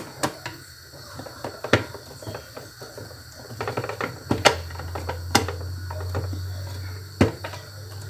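Irregular clicks and knocks of the blender's plastic base and buttons being handled and fitted back together, with a low steady hum in the second half.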